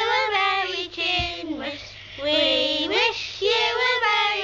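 Children singing a Christmas song together, in held notes with short breaks between phrases.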